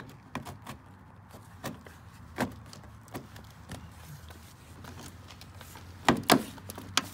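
Plastic front bumper trim on a Chevy Silverado being pressed by hand into its push-in clips, giving scattered light clicks and knocks. There are two louder knocks about six seconds in and another near the end.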